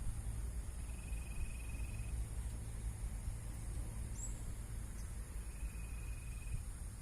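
Outdoor ambience: a steady low rumble under two short high trills, each about a second long, with a brief high chirp between them.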